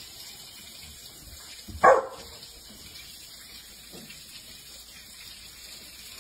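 A puppy barks once, short and sharp, about two seconds in, and makes a much fainter, lower short sound about two seconds later.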